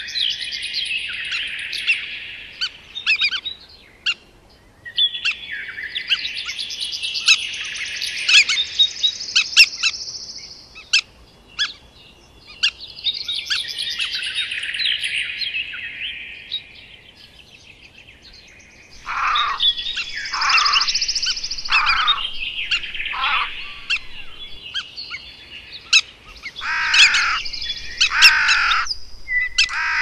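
Wild birds chirping and chattering in bouts of a few seconds, with short pauses between. In the last third, a series of harsh calls each falls steeply in pitch.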